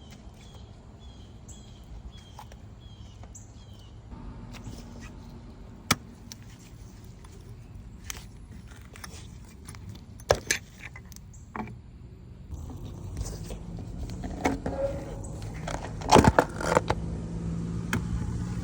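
Metal tools and engine parts clinking and knocking as they are handled, in scattered sharp strikes over a low steady rumble; a quick cluster of the loudest knocks comes a couple of seconds before the end.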